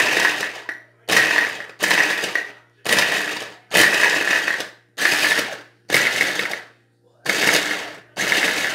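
Mallory hand blender driving its chopper-bowl blade through chunks of fresh coconut in short pulses. There are about nine bursts, each under a second and roughly one a second, with the pieces rattling and grinding against the bowl as they break into flakes.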